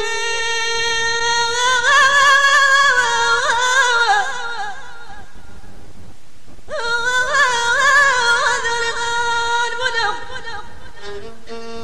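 A singer's voice in Middle Atlas Amazigh izlan style, drawing out two long, ornamented, wavering phrases with a short pause between them, followed near the end by a few short instrumental notes.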